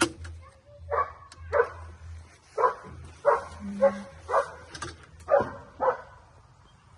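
A dog barking repeatedly, about nine short barks roughly half a second apart.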